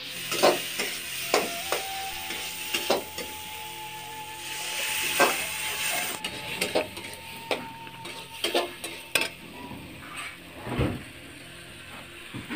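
Long metal spatula scraping and clinking against a steel kadai as potatoes and spices are stirred in hot oil, over a steady sizzle. The clinks come irregularly, one or two a second.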